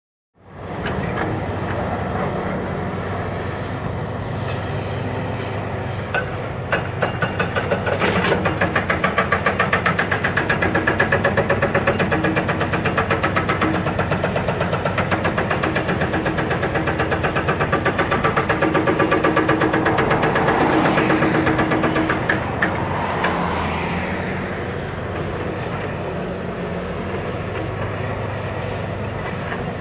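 Komatsu PC650LC excavator's diesel engine running under load while its hydraulic rock hammer pounds rock in a rapid, even rhythm from about six seconds in until just past twenty seconds, after which the engine runs on alone.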